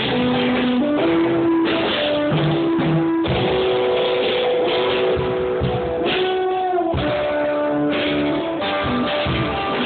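Band music led by guitar, with held chords and a drum beat.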